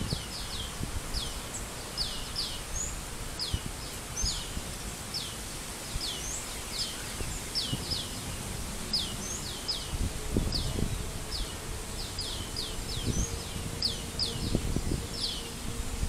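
Repeated short, high chirps, each sliding down in pitch, two or three a second and often in pairs, with low rumbles now and then.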